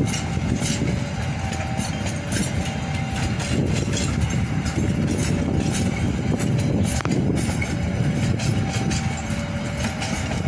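Passenger coaches' steel wheels rolling slowly over the rails through a junction, a steady rumble broken by a series of clacks as the wheels cross rail joints and points. The train is held to about 20 km/h by a speed restriction for track work.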